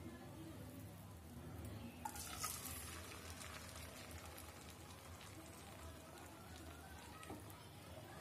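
Egg and onion omelette batter sizzling faintly in hot oil in a frying pan, with fine crackles that grow louder for a moment about two seconds in.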